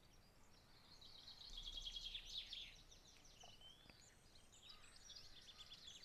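Faint birdsong: quick high trills and chirps, louder between about one and three seconds in and again near the end.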